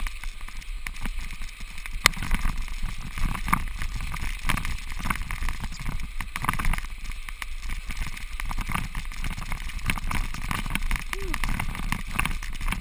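Bicycle tyres rolling over crusty lake ice and slush, a steady crackling and clicking, with a constant low rumble.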